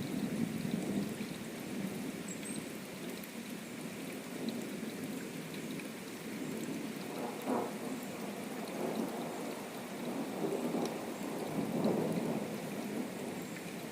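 Steady rain with low rolling thunder that swells and fades several times, most strongly about seven seconds in and again near the end.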